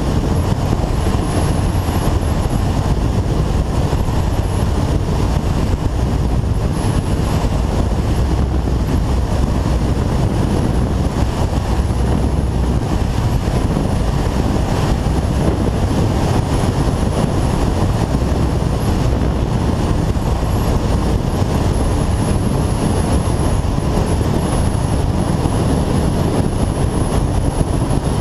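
Kawasaki ZZR1400 inline-four sport motorcycle ridden at a steady speed, its engine buried under a constant loud rush of wind and road noise on the microphone. A thin high whistle wavers on top.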